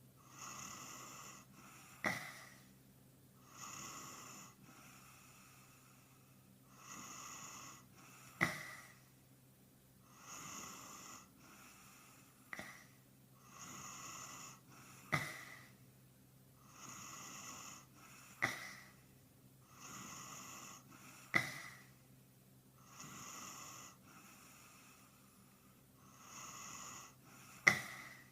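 A sleeping man snoring, sped up and raised in pitch, with a hissy breath about every three seconds. A short, sharp, loud sound breaks in seven times at uneven intervals, over a faint steady hum.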